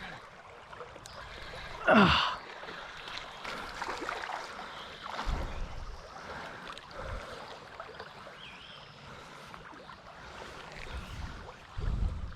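Creek water running steadily. About two seconds in there is one loud whoosh that falls in pitch, and low dull bumps come around the middle and near the end.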